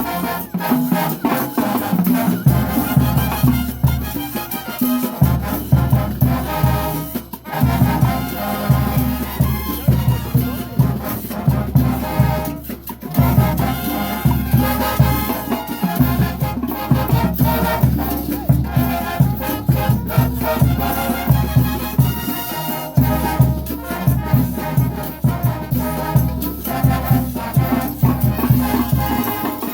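Mexican banda music: a brass band playing with a steady, pulsing bass beat and shaken percussion.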